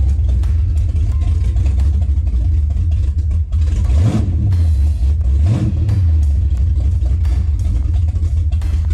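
Old Chrysler Newport's engine idling, heard from inside the cabin, revved up and back down twice, about four and five and a half seconds in.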